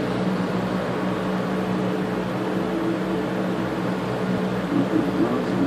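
Steady low mechanical hum, a constant drone with a faint hiss over it.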